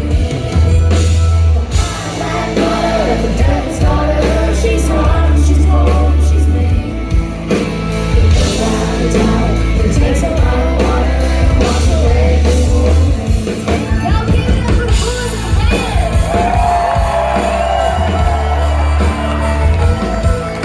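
A live country band playing an instrumental passage of the song, with a heavy steady bass, drum strikes and a lead melody over it.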